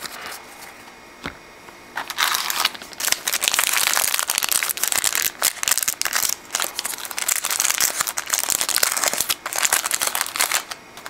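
Foil trading-card pack wrapper crinkling and crackling as it is handled and pulled open, a dense crackle that starts about two seconds in and lasts about nine seconds.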